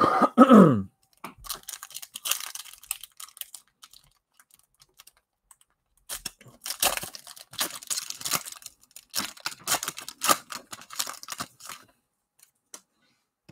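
Foil trading-card pack wrappers torn open and the cards flicked through by hand: quick crinkling tears and snapping clicks in two stretches, after a short loud sliding sound at the start.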